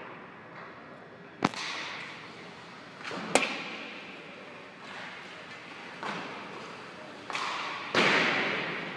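Ice hockey practice sounds echoing in an arena: two sharp cracks of sticks or pucks striking, about a second and a half and three and a half seconds in, and several hissing swells of skates scraping the ice or pucks hitting the boards, the loudest near the end.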